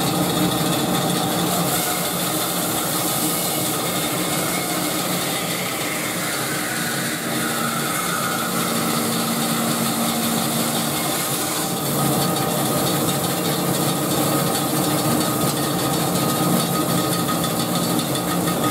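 Band saw running with its blade cutting steadily through a chunk of burl fed against the fence; the blade is a used one, freshly resharpened. The sound is a steady saw-and-motor noise that shifts slightly and grows a little louder about twelve seconds in.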